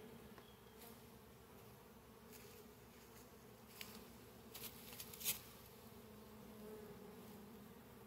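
Faint, steady buzzing of Russian honeybees around an open hive, with a few faint clicks near the middle.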